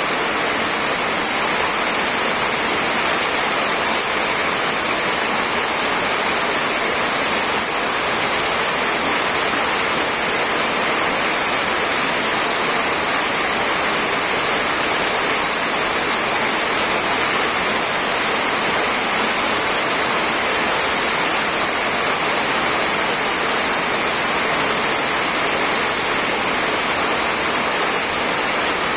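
Heavy rain on a tin roof: a dense, steady hiss with no let-up, strongest in the high range.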